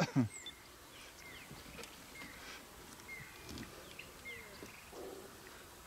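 Faint, short high-pitched chirps repeating about once a second over a quiet outdoor background, with a louder sound dying away in the first moment.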